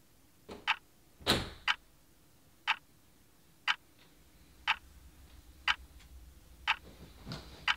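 Clock ticking steadily once a second, with one louder thump about a second in and a faint low rumble building toward the end.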